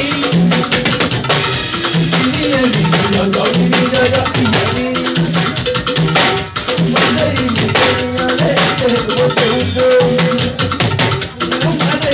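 Live band music with drum kit, shakers and a bass line, and a man singing into a microphone over it.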